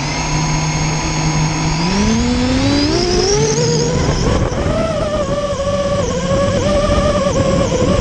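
Brushless motors of a Vortex 250 racing quadcopter spinning steadily, then throttling up with a rising whine about two seconds in and running at a high, wavering pitch as it lifts off and flies. The owner suspects one of the motors is bad.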